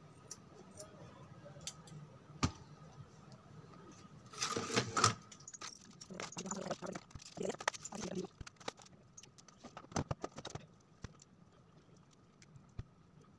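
Small clicks, snips and rustling from hands working on a fan motor's wound stator with scissors, wire leads and plastic cable ties. The sounds come in scattered bursts, with a dense flurry of clicks about four to five seconds in.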